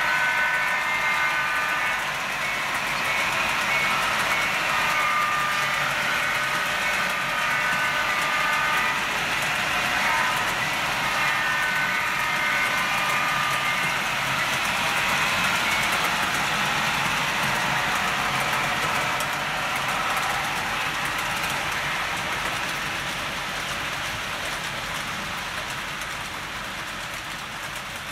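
HO scale model train running on the layout, a steady rolling rush of wheels and motors. A series of held high tones sounds over the first half, and the train noise fades gradually toward the end.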